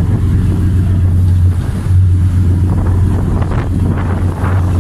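Boat engine running alongside a ship's hull as a steady low drone, with wind buffeting the microphone.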